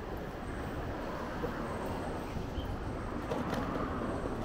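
Steady wind and road rumble while riding along a paved city bike lane, with a few faint clicks and rattles, and traffic noise in the background.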